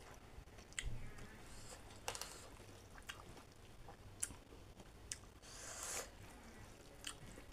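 Faint close-up chewing of chicken roast and rice, with scattered sharp wet mouth clicks and smacks, about one every second or so.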